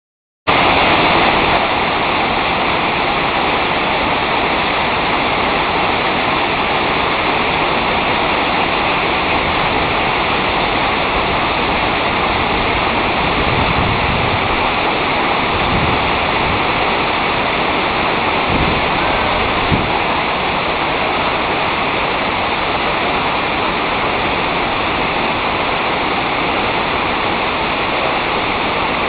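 Steady rushing roar of a high waterfall's falling water, Diyaluma Falls, starting abruptly about half a second in, with a few brief deeper swells midway, like gusts of wind on the microphone.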